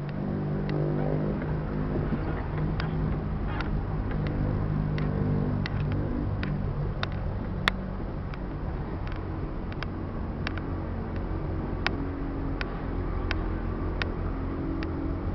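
Car engine and road noise heard from inside the cabin while driving slowly, the engine pitch rising briefly near the start. Frequent sharp clicks and rattles run through it, one louder about halfway.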